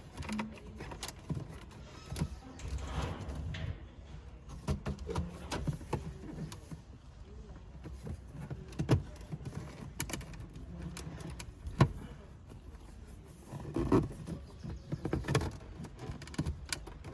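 Plastic dashboard trim being pried and tugged by hand while hunting for its hidden clips: scattered clicks, taps and knocks of plastic parts, with a sharper knock about twelve seconds in and a cluster of knocks near the end.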